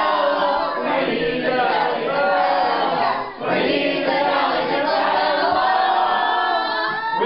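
A group of people singing a song together, many voices at once, with a short break for breath about three seconds in.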